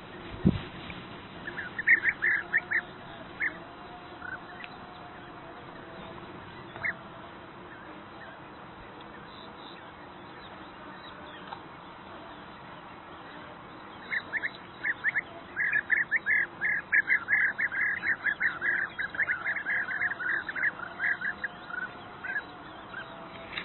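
European bee-eaters calling: short rolling calls, a few quick bursts at first, a handful of single calls, then a long run of rapid calls through the second half. A low thump just after the start.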